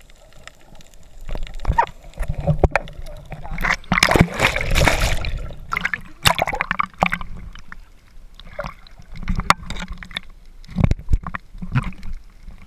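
Water splashing, sloshing and gurgling around a snorkeler's camera, in irregular bursts, loudest about four to five seconds in.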